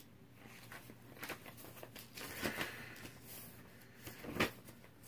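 Faint rustling and a few scattered soft clicks, the sharpest about four seconds in, over a low steady hum: handling noise of someone looking something up.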